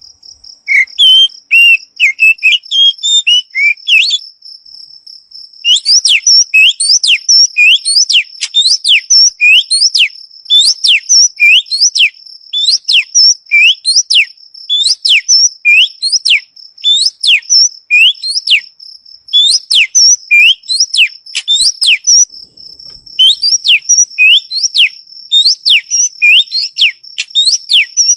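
Songbird masteran (training) recording: a bird singing short varied chirps, then after a brief pause long runs of sharp whistled notes that sweep down and back up, about two a second, over a steady high insect trill.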